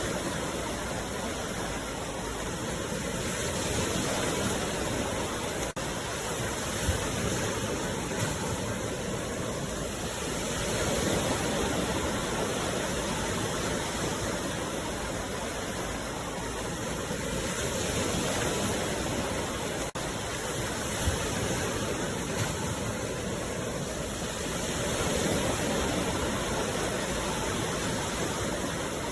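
Sea waves washing ashore: a steady rush of surf that swells about every seven seconds.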